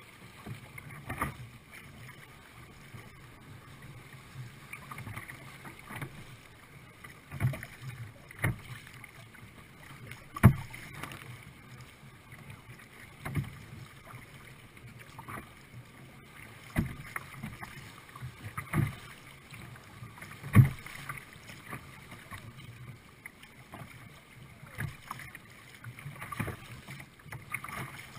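Sea kayak moving through choppy sea, picked up on its own deck: steady sloshing of water along the hull, broken every few seconds by irregular sharp slaps and splashes of waves and paddle against the boat.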